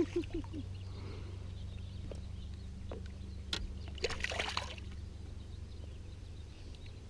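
A hooked smallmouth bass splashing at the water's surface beside the boat as it is grabbed by hand, with a brief burst of splashing about four seconds in, over a steady low hum.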